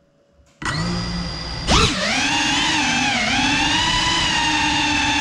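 FPV quadcopter's brushless motors start spinning at idle about half a second in. Their whine rises sharply as the throttle is punched for takeoff, then holds, wavering up and down in pitch as the quad flies.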